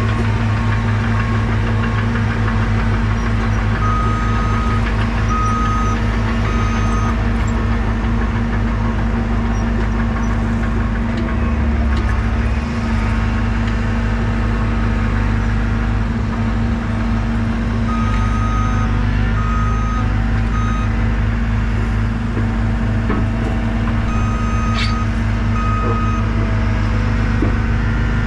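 Diesel engine of heavy earthmoving equipment running steadily under work, with a backup alarm beeping in three short runs as a machine reverses.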